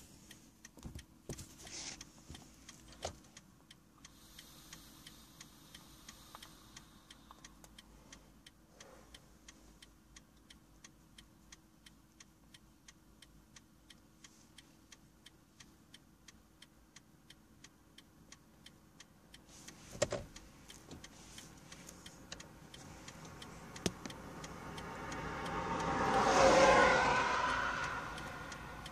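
A parked car's hazard-light flasher ticking steadily and evenly. Near the end another vehicle goes by, its noise swelling and then fading, with a single knock shortly before.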